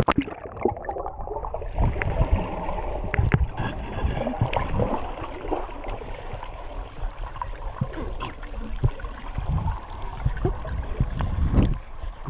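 A splash, then muffled underwater sound from a submerged GoPro: gurgling and bubbling with scattered clicks and a low rumble.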